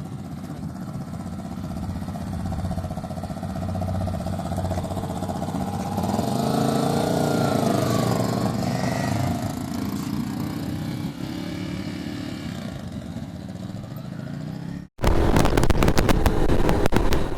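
Single-cylinder 250 cc dual-sport motorcycle engines running, with the pitch rising and falling about halfway through as a bike revs or passes. About 15 seconds in it cuts abruptly to a louder on-bike sound with rapid clattering from the gravel track and wind noise.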